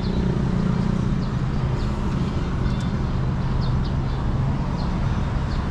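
Outdoor ambience: a steady low traffic rumble that eases off near the end, with short high chirps of birds scattered through.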